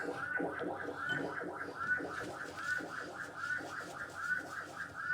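Background music: a short, high figure repeating evenly about twice a second over a lower accompaniment.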